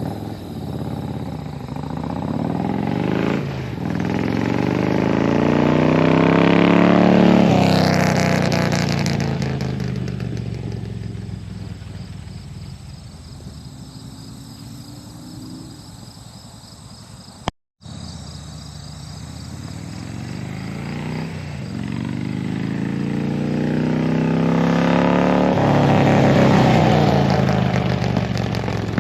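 2009 Harley-Davidson Electra Glide Classic's 96-cubic-inch V-twin with Andrews 48 cam, running through true dual RC Components exhaust pipes, heard riding by twice. Each time the engine note climbs through a gear change, grows louder to a peak, then drops in pitch and fades.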